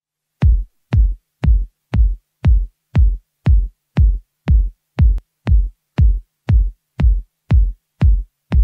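House music kick drum playing alone in a steady four-on-the-floor beat, about two thumps a second, with no other instruments yet.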